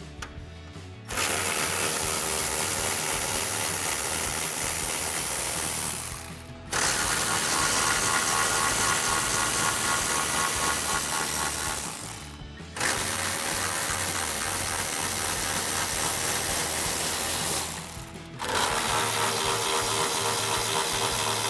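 Cordless electric ratchet with a 10 mm socket running in four runs of about five seconds each, with short pauses between them, backing out the four bolts of a pickup's upper grille mount.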